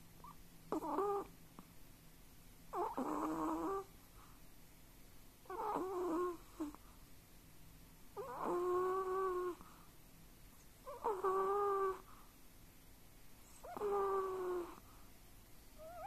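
Sleeping Chihuahua whistling through its nose as it breathes in its sleep, a pitched whistling snore about a second long. It comes six times, roughly every two and a half seconds.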